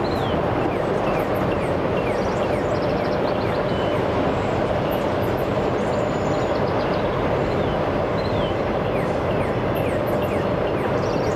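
Freight train of autorack cars rolling past at a steady pace, with a continuous, even sound of steel wheels on rail.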